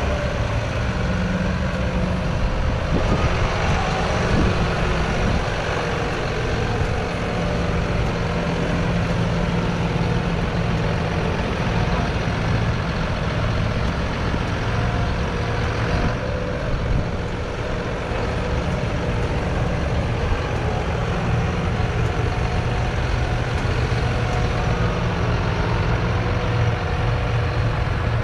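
John Deere 6215R tractor's 6.8-litre six-cylinder diesel engine running steadily.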